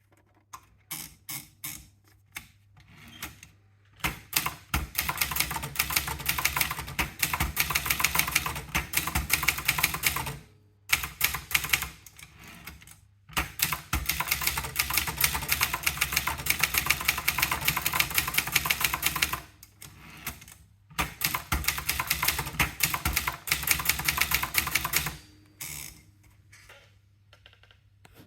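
Brother Deluxe 1300 typewriter being typed on: a few single keystrokes, then three long runs of fast, rapid key strikes separated by short pauses.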